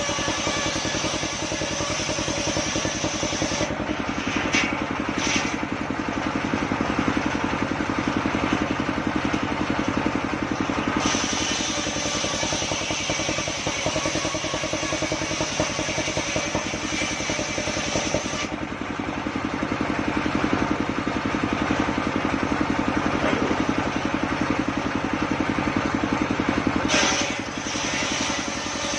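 Homemade circular sawmill, its engine running steadily while the blade cuts sengon wood; the high cutting hiss drops away briefly several times, at about 4, 11, 18 and 27 seconds in, between passes.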